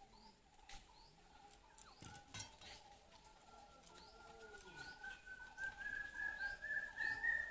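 Birds calling: repeated short, high chirps over lower, wavering cooing calls, with a few sharp clicks. About three seconds in, a long, steady whistle-like tone joins; it rises slowly in pitch and grows louder.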